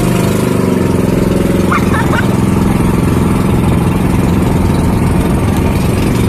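A motor vehicle's engine running steadily at an even speed, with a few short high chirps about two seconds in.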